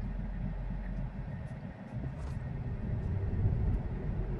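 Low road and tyre rumble inside the cabin of a Tesla electric car, with no engine sound, as it drives through traffic. The rumble dips briefly just before two seconds in, then grows louder as the car picks up speed.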